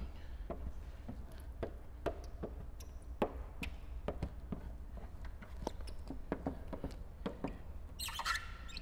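Squeegee working wet slip solution out from under paint protection film on a car hood: a run of short scrapes and squeaks, with a longer, louder rasping squeak about eight seconds in, over a steady low hum.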